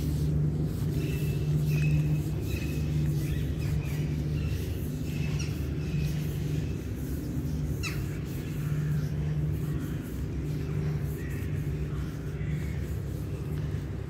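Outdoor park ambience: a steady low rumble with birds chirping briefly and repeatedly over it, and one quick rising call about eight seconds in.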